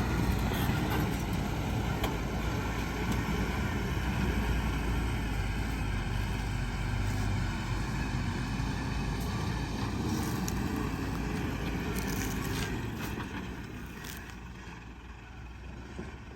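Diesel engine of heavy earthmoving machinery, an excavator or dump truck, running with a steady low rumble that fades away near the end.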